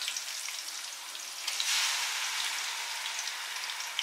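Oil sizzling and crackling under frying onions, whole spices and herbs as onion-ginger-garlic paste is tipped into the pot; the sizzle swells about one and a half seconds in.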